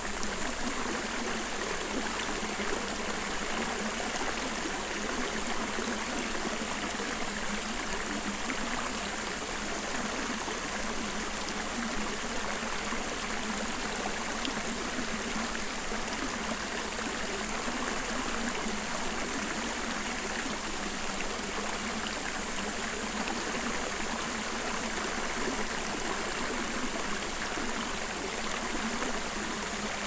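Clear stream's running water, a steady rush that does not change.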